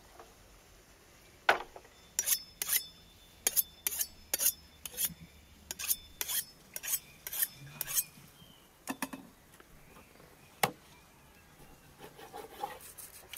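A kitchen knife drawn quickly along a sharpening rod: a run of ringing metal scrapes, about two a second for several seconds, then two single strokes. Near the end come softer sounds of the knife cutting raw meat on a wooden board.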